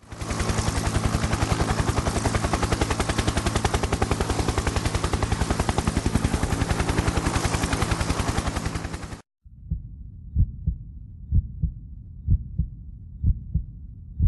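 Edited intro sound effects. First, a loud, sustained rattle of rapid, evenly spaced pulses like automatic gunfire, which cuts off abruptly about nine seconds in. Then come low, heartbeat-like double thumps, roughly one beat a second.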